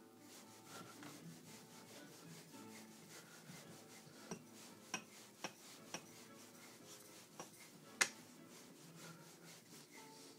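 Kanna plane blade being rubbed back and forth on a wet Narutaki Tomae natural sharpening stone in its slurry: a faint rubbing, with several light clicks, the sharpest about eight seconds in.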